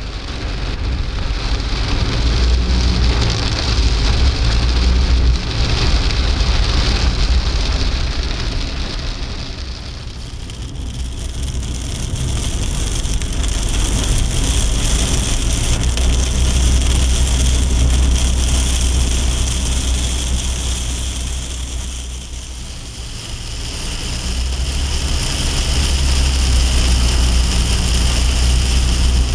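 Heavy downpour drumming on a car's windshield and roof, heard from inside the cabin over a steady low rumble from the car. The rain noise eases off twice and swells back up.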